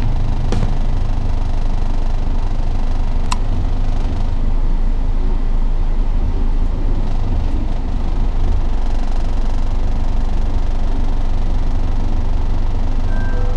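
Car engine running with a steady low rumble during a driving-test manoeuvre, with a couple of sharp clicks, one about three seconds in.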